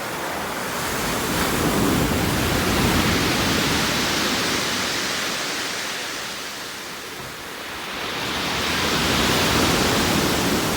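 Sea waves breaking and washing ashore: a loud rushing hiss that swells and fades, building to one peak a few seconds in and a second near the end.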